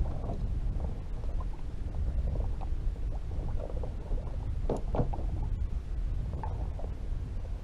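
Steady low rumble of wind and water around a small skiff, with scattered small knocks and rustles as a soft bag is handled in the boat; a louder knock about five seconds in.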